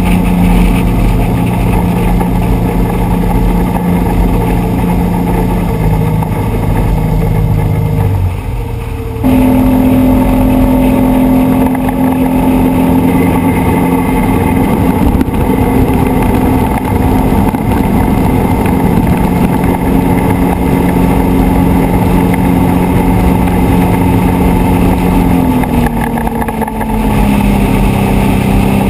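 Pontoon boat's outboard motor running under way at cruising speed, a steady engine tone over water and wind noise. About eight seconds in it briefly drops and quietens, then comes back abruptly at a higher pitch, and near the end the pitch steps down a little.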